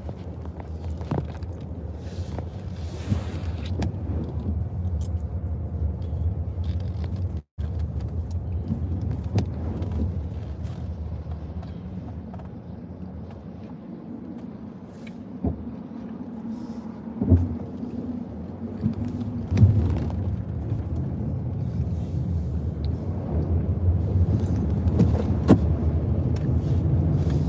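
Car driving on wet roads, heard from inside the cabin: a steady low rumble of road and engine noise with occasional knocks and clicks, growing louder near the end.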